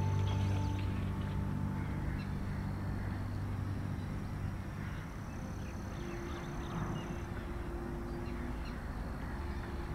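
Soft ambient music fades out over the first couple of seconds, leaving marshland ambience with scattered calls of waterbirds, including ducks quacking.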